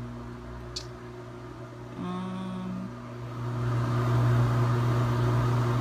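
A steady low electrical hum, as of a running appliance, that grows louder with added hiss about three and a half seconds in; a single short click comes near the start.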